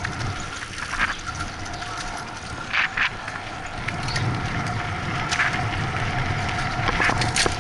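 Bicycle rolling along concrete sidewalk and asphalt, the bike-mounted camera rattling over the rough surface, with sharp knocks as the wheels hit bumps and edges; the loudest is a double knock about three seconds in.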